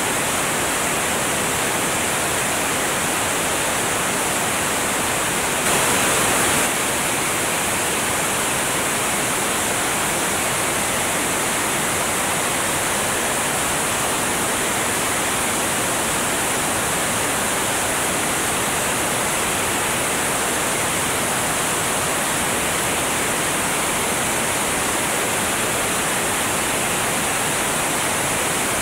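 Steady rush of airflow over a camera mounted outside under the wing of a light aircraft in flight: an even hiss with no engine tone standing out. It swells briefly about six seconds in.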